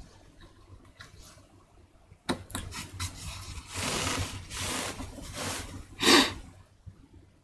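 Woodblock carving at the bench: a sharp click a little after two seconds in, then a series of rubbing, scraping sounds as the block is turned on the bench and worked with a chisel, the loudest just before the end.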